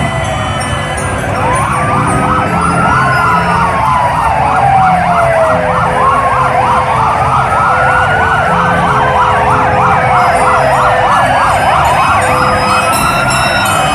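Emergency vehicle sirens sounding together: a wail slowly rising and falling over a few seconds at a time, overlapping a rapid yelp.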